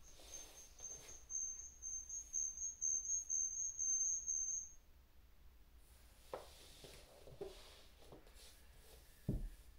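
A high-pitched electronic beeping tone pulsing rapidly for a few seconds, then cutting off about halfway through, followed by a few light knocks and handling thumps, the loudest near the end.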